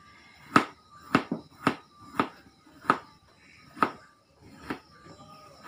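A kitchen knife slicing through bitter gourd and striking a cutting board in about eight separate chops. The chops are a little over half a second apart at first and space out toward the end.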